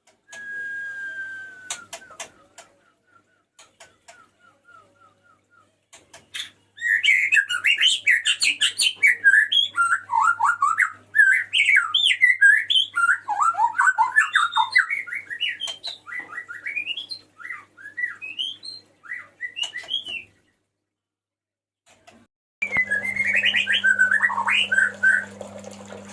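Male white-rumped shama singing: one drawn-out whistle, then a long, rapid run of varied whistled and warbled phrases. The song breaks off suddenly for about two seconds and then resumes briefly over a low hum.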